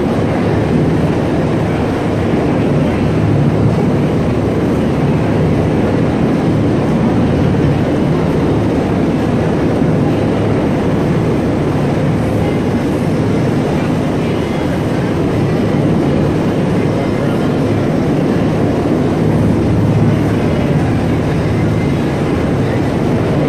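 U.S. Coast Guard rescue helicopter hovering overhead: a loud, steady rotor and engine noise that barely changes.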